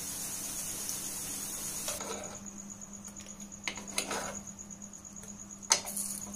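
Hot oil still sizzling in a frying pan around fried sabudana vadas, stopping abruptly about two seconds in. Then a small metal spoon clinks sharply against the pan three times, over a faint, high, steady chirring tone.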